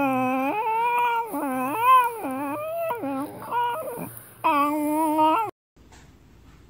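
A dog whining and yowling in about five drawn-out moans that bend up and down in pitch, the way a dog 'talks' back. The sound cuts off suddenly about five and a half seconds in.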